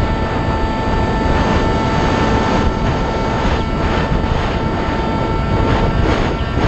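Multiplex Shark RC plane's electric motor and propeller giving a steady whine, heard from a camera mounted on the plane, under heavy wind buffeting on the microphone. The tone fades briefly near the end and then returns.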